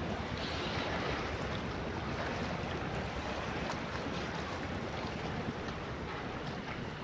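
Sea wind buffeting the microphone: a steady rushing noise with a heavy low rumble, with the sea's wash beneath it.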